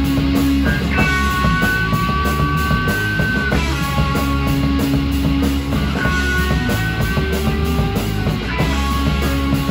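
Live rock band playing an instrumental passage on electric guitars and drums, loud and dense, with long held high guitar notes twice.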